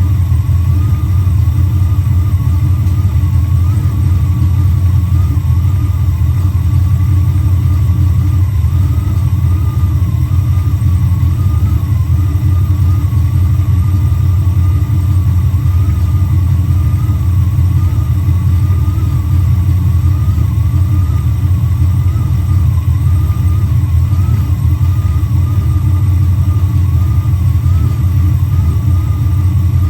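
Mopar 340 small-block V8 running at a steady idle, with a thin wavering whine above the engine note.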